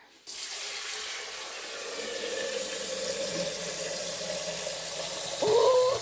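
Kitchen tap running into an electric kettle held under it, filling it with water: steady splashing with a faint tone in it that rises slightly as it fills, getting louder for a moment near the end.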